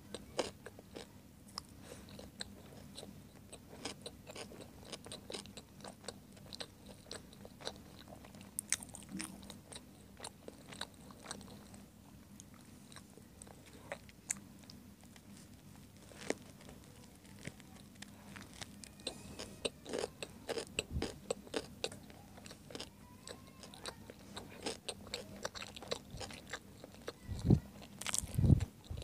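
Close-miked eating: biting and chewing a hot dog sandwich in a soft bun, with many small mouth clicks and smacks throughout. A few louder knocks come near the end.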